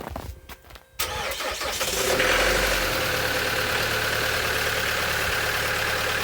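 Chevrolet Colorado's 2.8-litre Duramax four-cylinder turbodiesel starting cold after a night in sub-zero temperatures: the starter cranks about a second in, the engine catches within a second, and it settles into a steady, somewhat loud idle.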